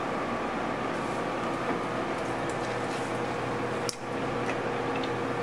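Steady hiss with a faint low hum, broken by a short sharp click about four seconds in.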